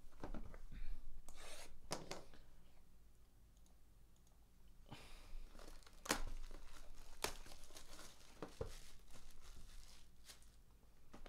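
Plastic shrink wrap being torn and peeled off a trading-card hobby box, crinkling and crackling with irregular sharp snaps. It quietens for a couple of seconds partway through, then picks up again.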